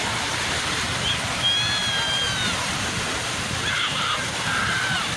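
Sea surf washing steadily on the shore, with a few faint, high calls or distant voices drifting over it.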